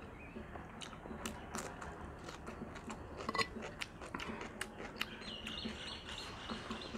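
Close-up eating sounds: chewing, wet mouth clicks and lip smacks, with fingers squishing rice and curry on clay plates. A thin high whistling tone sounds for about two seconds near the end.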